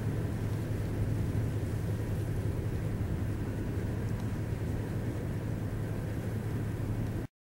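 Steady low rumble of outdoor ambience picked up by a camcorder microphone, with no distinct events, cutting off abruptly near the end.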